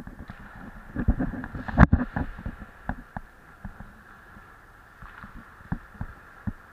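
Wind buffeting the microphone of an action camera worn by an ice skater, with dull knocks and thumps from the skater's movement. The knocks come thickly in the first two seconds and grow sparser after.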